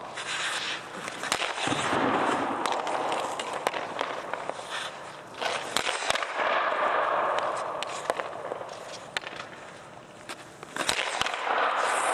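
Hockey skates scraping and carving across the ice in swells of a second or two, with repeated sharp cracks of sticks shooting pucks and pucks striking the goalie's pads.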